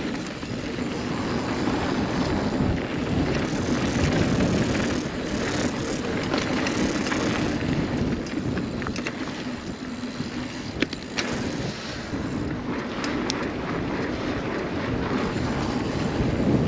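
Steel hardtail mountain bike rolling along a dirt trail: knobby 29-inch tyres running over the ground, with wind on the microphone and a few sharp knocks from the bike over bumps about eleven seconds in.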